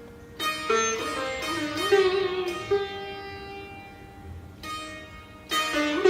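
Background music: a plucked string instrument playing slow single notes that ring on, their pitch sliding up and down between notes. A fresh burst of plucked notes comes near the end.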